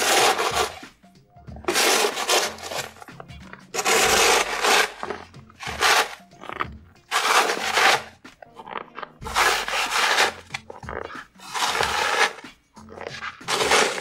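Snow shovel scraping and pushing snow across a deck in repeated strokes, one every one to two seconds, over background music with steady low bass notes.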